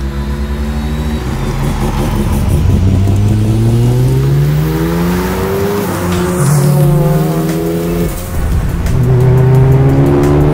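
Bridge-ported, big-single-turbo 13B rotary engine of a Mazda FD3S RX-7 accelerating hard through the gears: the pitch climbs, drops at a shift about six seconds in and again about eight seconds in, then climbs again.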